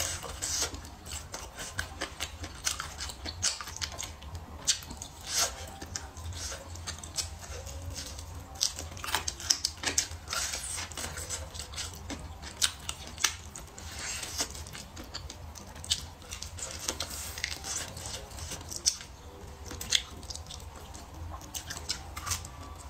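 Close-miked chewing and biting of a crispy battered fried chicken drumstick: irregular crisp crackles and crunches with wet mouth sounds.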